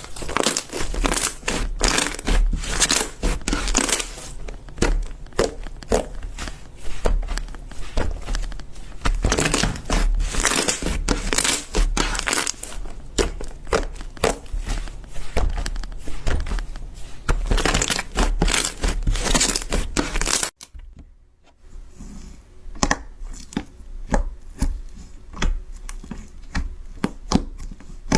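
Slime being squeezed and worked by hand, giving dense, irregular crackling and popping clicks. The sound cuts off abruptly about twenty seconds in, then resumes with fainter, sparser clicks.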